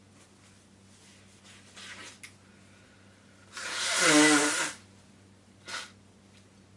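A person sneezing once, loudly, about halfway through: a hissing burst of air with a voiced cry that bends in pitch, lasting about a second. Fainter short noises come before it and one after.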